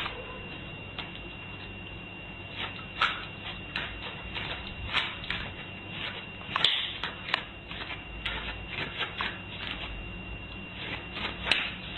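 Light, irregular clicks and scuffs of a small dog's feet moving on a doormat and tile floor, over a steady hiss with a faint high tone.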